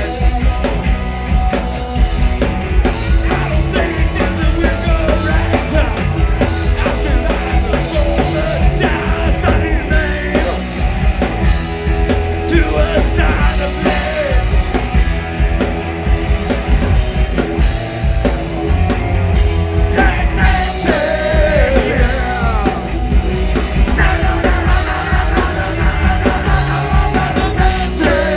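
Cowpunk rock band playing live at full volume, with some singing over the band.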